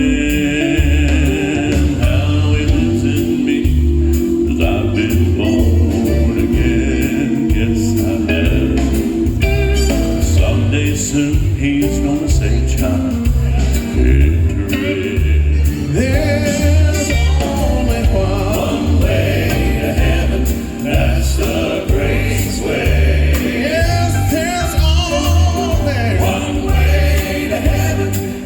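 Gospel quartet music: voices singing over a band with a steady, pulsing bass line.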